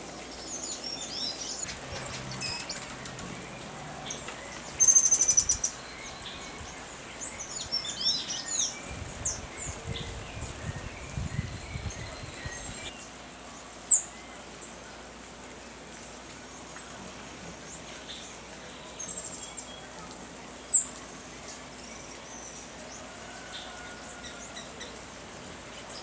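Songbirds calling: many short high chirps and whistles, a loud rapid trill about five seconds in, and two sharp high calls at about fourteen and twenty-one seconds, over a steady hiss. A low fluttering rumble runs from about nine to twelve seconds in.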